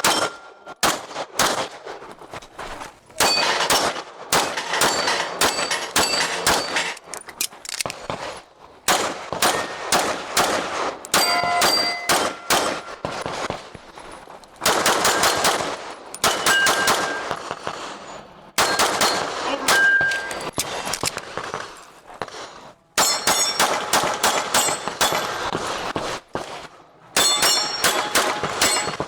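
Pistol fired in quick strings of shots during a timed competition stage, with steel targets ringing when hit; the strings break off with short pauses between them.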